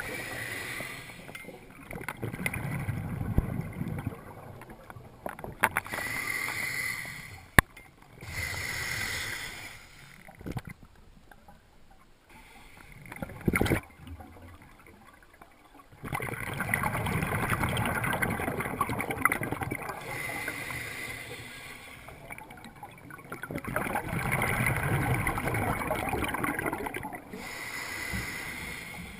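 Water sloshing and lapping in surges a few seconds long, with a few sharp knocks.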